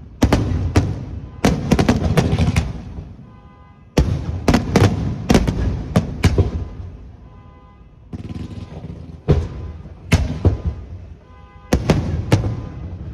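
Fireworks display: shells bursting in volleys of sharp bangs and crackles, in rapid clusters with short lulls between them. Music plays faintly underneath, heard in the gaps.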